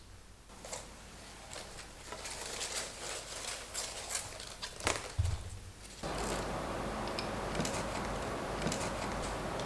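Light clicks and rattles of a string of small white lantern lights and their twisted wire being handled and laid out on a tabletop. About six seconds in the sound changes suddenly to a steadier hiss with a few clicks.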